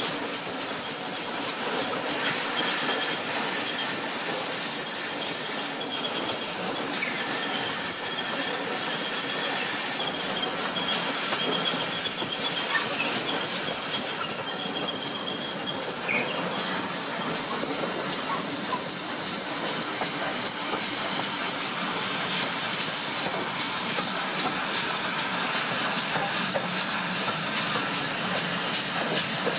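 Steam locomotive, pannier tank No. 9681, running with its train, heard from the leading carriage: a steady mix of wheel-on-rail noise and steam hiss. The hiss rises twice in the first ten seconds, and a faint high squeal comes and goes.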